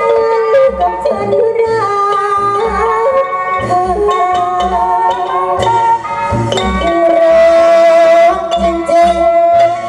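Likay stage music: a melodic instrumental passage over a steady low drum beat, with a long held note in the second half.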